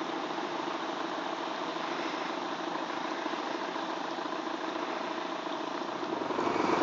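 Radio-controlled model pilot boat's motor running steadily as the boat cruises under power.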